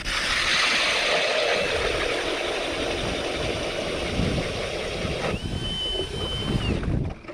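Ice auger running and drilling a hole through the ice, a steady loud noise that starts abruptly and cuts off near the end. A high steady whine joins for about a second and a half a little past halfway.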